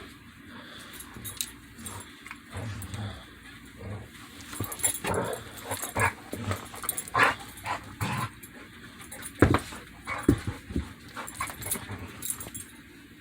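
Two dogs sneezing at each other: a run of short, sharp sneezes, most of them in the second half, the loudest about nine and a half seconds in.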